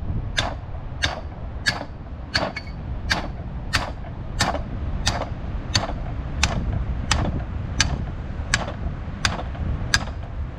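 Sledgehammer blows driving a galvanised steel tube sleeve over a bent drag link, striking steadily about three times every two seconds, each a sharp hit. Underneath is a steady low rumble.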